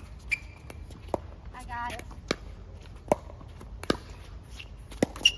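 Pickleball paddles hitting the plastic ball back and forth in a doubles rally: a string of about seven sharp pops, most under a second apart and two in quick succession near the end. A player's short call is heard about two seconds in.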